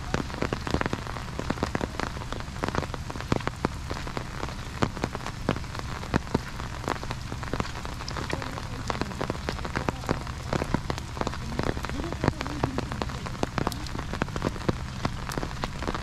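Steady rain falling on an umbrella overhead: an even hiss with many sharp, irregular drop taps.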